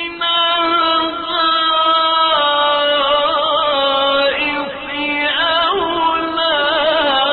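A man's voice reciting the Quran in a slow melodic chant, holding long notes with wavering ornaments.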